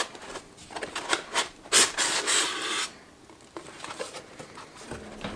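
Styrofoam packing block sliding and rubbing out of a cardboard box: a run of scraping rubs, the longest and loudest about two seconds in, then quieter handling.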